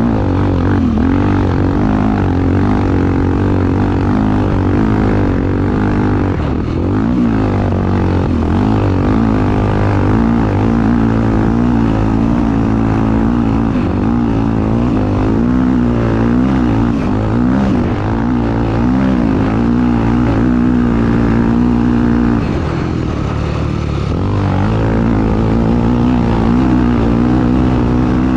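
Honda XR250 Tornado single-cylinder four-stroke motorcycle engine running hard, its revs rising and falling continually through the throttle and gear changes of a sand race.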